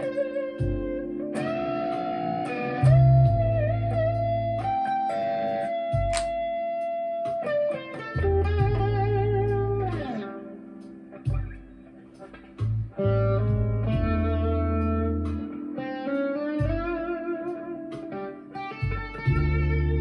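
Chapman ML1 Standard Traditional electric guitar played through a Marshall MG15CFX amp with a Behringer vintage overdrive pedal: an overdriven lead line of sustained single notes, string bends and vibrato.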